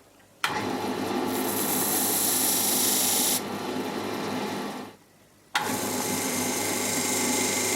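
A turning tool cutting a small wooden piece spinning on a wood lathe, in two passes. Each cut starts sharply with a dense, hissy scraping, and there is a short break just before 5 seconds between them.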